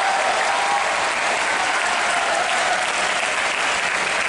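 Arena crowd applauding steadily, with some voices cheering, at the end of a badminton rally.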